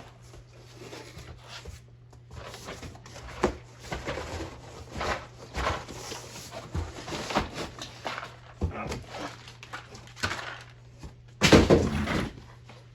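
Packaging being unwrapped by hand: irregular rustling, crinkling and scraping of cardboard and wrapping material, with a louder burst of handling noise about eleven and a half seconds in.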